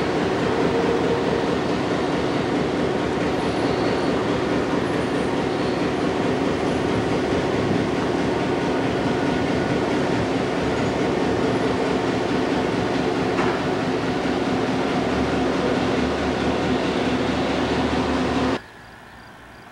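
Train running past on the rails: a loud, steady rumble with a few steady low tones in it. It cuts off suddenly near the end.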